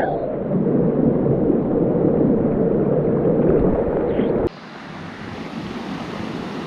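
Steady rush of falling water from a waterfall. For about four and a half seconds it is loud and muffled, then it cuts suddenly to a quieter, more open hiss.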